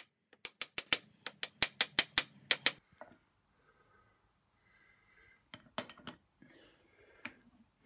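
Hammer striking a metal punch held against a bronze bearing cap: a quick run of about a dozen sharp, ringing metal taps, then a few lighter clinks as the metal parts are handled.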